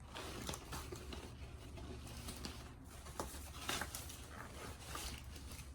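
Scattered light rustles and taps of hands handling things, such as the doll, its packaging or the dress, in an irregular run of short sounds.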